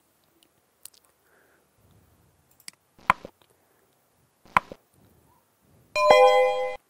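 Sound effects of an animated like-and-subscribe button: a few sharp clicks, two of them louder, then near the end a short bell-like notification chime of several steady tones.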